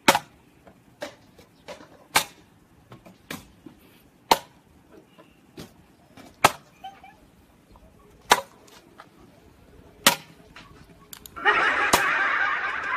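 A series of sharp cracks, about a dozen, coming irregularly one to two seconds apart. About eleven seconds in, a burst of rushing noise lasts about two seconds.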